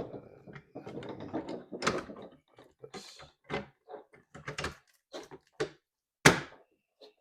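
Irregular clicks, knocks and rattles of taillight parts being handled and fitted together, with one sharp knock about six seconds in that is the loudest sound.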